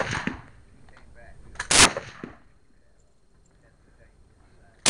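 High-power rifle shots. One sharp crack about two seconds in with a short echo after it, the dying echo of a shot at the start, and another shot right at the end.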